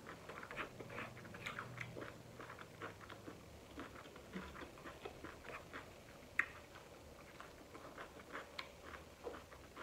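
A person chewing a mouthful of vegetable stir fry close to the microphone: a run of soft, wet mouth clicks and smacks, with one sharper click about six and a half seconds in.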